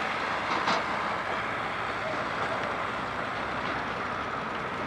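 Diesel engines of a Caterpillar E120B tracked excavator and a Tata dump truck running steadily while the excavator works. A brief sharp knock comes just under a second in.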